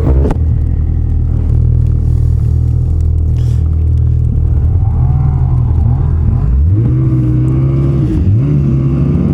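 Ski-Doo 850 two-stroke snowmobile engine running at a steady cruise. The revs climb about six and a half seconds in, hold, then dip and climb again near the end.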